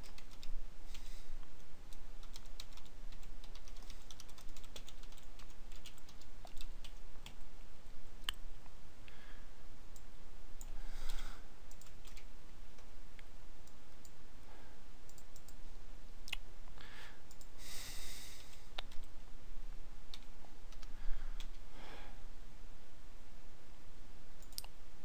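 Typing on a computer keyboard in short runs of keystrokes, with separate mouse clicks in between.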